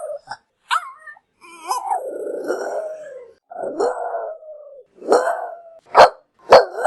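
A dog calling: a couple of short yelps, then two long drawn-out howling calls, then three loud sharp barks in the last couple of seconds.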